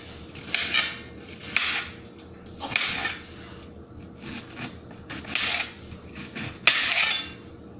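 Kitchen knife chopping red onions: irregular, uneven chopping and scraping strokes, about eight in all.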